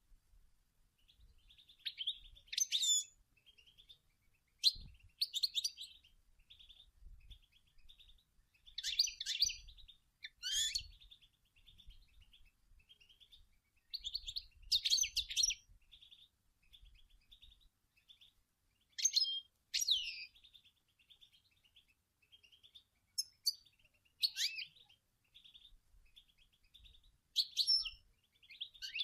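European goldfinch singing: bursts of rapid twittering every few seconds, with softer twittering in between.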